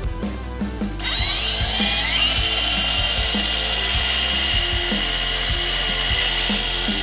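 Battery-powered Ryobi 18-volt tool motor driving a small propeller in the open air. It whines up quickly in pitch about a second in as the throttle trigger is squeezed, then runs at a steady high whine.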